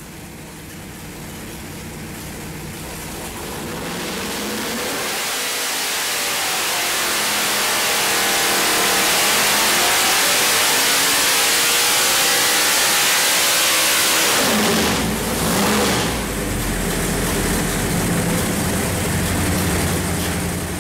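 Racing V8 pulling-truck engine running on an engine dyno: it revs up from a low speed over several seconds to a loud, high speed held for about five seconds, then drops back sharply about fifteen seconds in and runs on at a lower speed.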